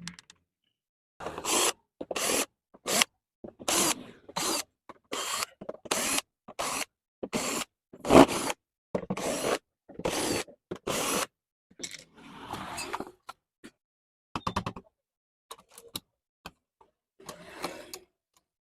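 A run of short scraping and clicking handling sounds from tools and parts being worked, about one to two a second, with dead silence between each.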